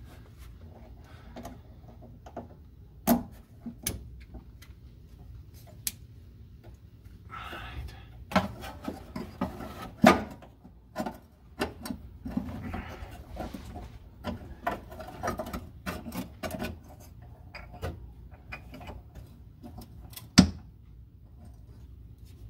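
Irregular clicks, knocks and rubbing of hand work on the fuel-line hoses and plastic retaining clips at the fuel filter under the car, with the sharpest knocks about three, ten and twenty seconds in.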